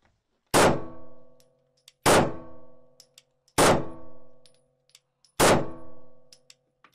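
Glock pistol fired semi-automatically with no conversion device: four single shots about a second and a half apart, and a fifth right at the end. Each shot leaves a ringing tail.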